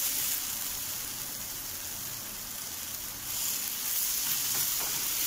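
Sliced onions sizzling in hot oil in a frying pan as a spatula stirs them. The hiss is steady, dips for a couple of seconds and picks up again.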